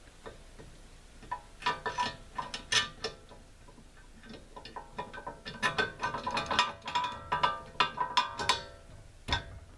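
Steel spacers, a carriage wheel and a bolt clinking and scraping against a steel sawmill carriage wheel housing as the wheel is slid in and the bolt pushed through: irregular runs of small metallic clicks that ring briefly, with one sharper knock near the end.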